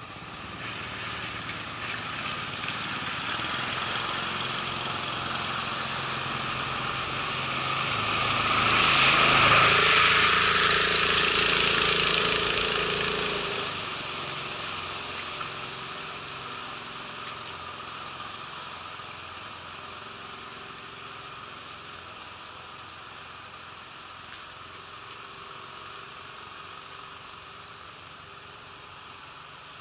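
Mokai motorized kayak's small engine and jet drive running as the boat passes close by, with a rushing hiss of water loudest as it goes past, then fading steadily as it heads away down the channel.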